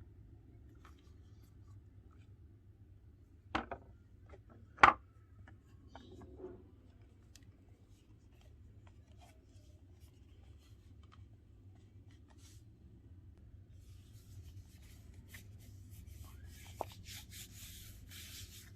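Handling noises while unboxing a phone case: two sharp knocks about three and a half and five seconds in, then scratchy rubbing and rustling in the last few seconds.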